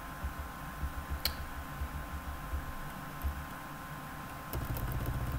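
Typing on a computer keyboard: irregular soft key taps, with one sharper click about a second in. About four and a half seconds in, a low steady hum starts up under the typing.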